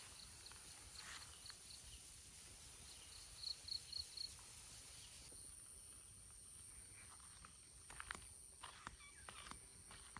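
Faint outdoor ambience: a high-pitched chirp repeated rapidly, about four or five times a second, in two short runs, over a thin steady high tone, with a few soft ticks or steps later on.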